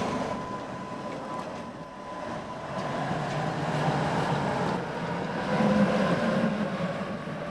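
Two-car Tatra T5C5 tram set running past, steel wheels on rail with a steady whine, growing louder from about three seconds in.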